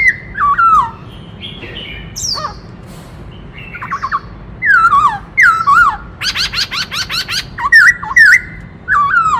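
Black-throated laughingthrush singing a varied song of loud whistled phrases that slide down in pitch. There is a quieter stretch with short softer notes about a second in, and a fast rattling trill from about six to seven and a half seconds in.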